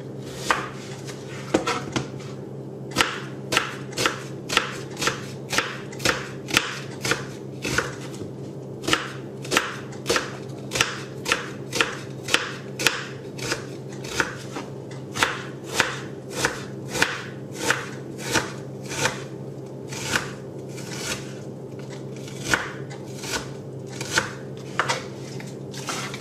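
Chef's knife chopping an onion on a plastic cutting board: a steady run of sharp knife strikes, about two a second, over a steady low hum.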